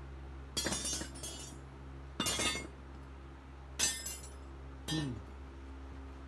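Four separate clinking, clattering impacts of hard junk being tossed onto a pile, each with a short ring.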